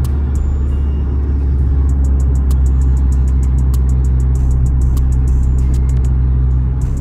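Dodge Charger driving, its engine and road noise making a steady low drone, with music playing over it.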